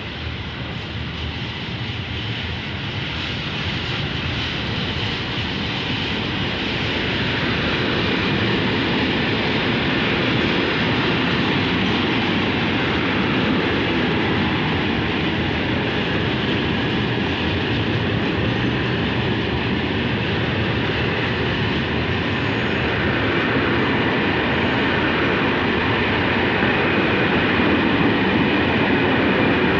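Freight train of container wagons rolling past at speed: a steady rush and rumble of steel wheels on rail, growing louder over the first several seconds and then holding.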